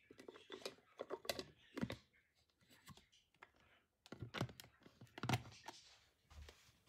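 Food processor's plastic lid and motor unit being handled and lifted off the glass bowl: a run of irregular light plastic clicks and knocks, thinning out about halfway, then a few more.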